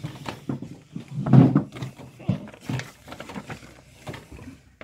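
A paper instruction booklet being handled and opened, with scattered rustles and clicks. About a second and a half in there is one louder, short, low sound.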